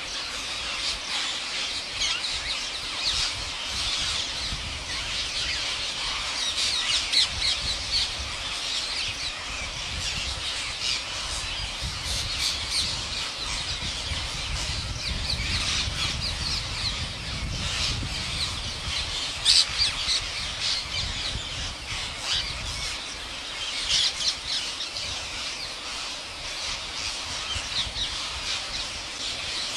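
A flock of parrots squawking and screeching, many harsh calls overlapping continuously with sharper, louder cries standing out now and then.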